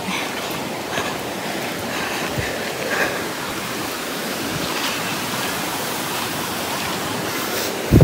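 Waterfall rushing: a steady, even sound of falling water.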